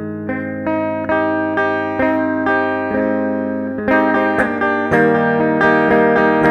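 Instrumental passage of a song: guitar notes picked one after another over ringing chords, getting louder and fuller about four seconds in.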